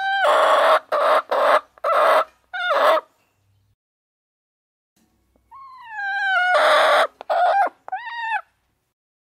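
Chickens giving loud, harsh squawking calls in two bouts. Each bout starts with a sliding note and breaks into several short squawks; the second comes about five and a half seconds in.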